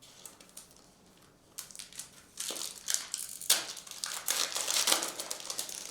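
Foil trading-card pack wrappers crinkling and being crumpled by hand, starting about a second and a half in and going on in a run of crackly rustles.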